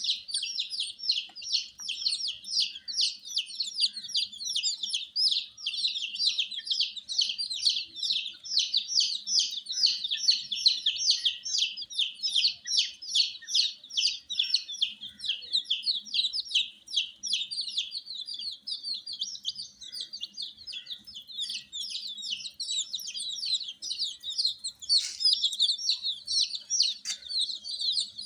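A group of baby chicks peeping continuously: a dense, overlapping stream of short high-pitched peeps, several a second.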